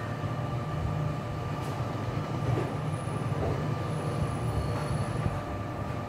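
Steady low background rumble with a constant thin whine running through it.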